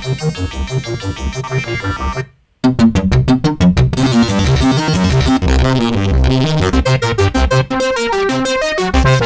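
Sampled analog synthesizer sequence loops auditioned one after another. A rhythmic synth pattern plays for about two seconds and stops, and after a brief gap a louder, busier sequence starts and keeps going.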